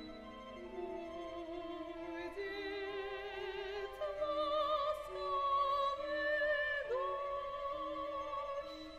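Soprano singing long held notes with wide vibrato, her line stepping up about two and four seconds in and sliding down and back up near the end, over sustained chamber-orchestra strings and a pattern of short repeated low notes.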